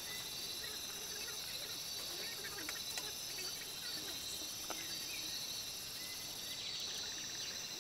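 Steady high-pitched chorus of forest insects, with scattered faint chirping calls and a couple of sharp clicks about three and nearly five seconds in.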